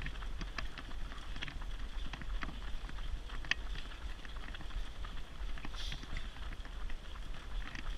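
Footsteps of a pack of runners slapping on the road in a quick, irregular patter, over a steady low rumble.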